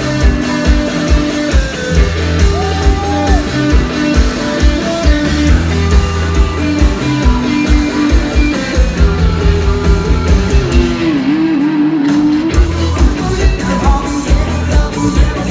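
Rock band playing live: a steady drum beat under bass and electric guitar, heard loud from the audience.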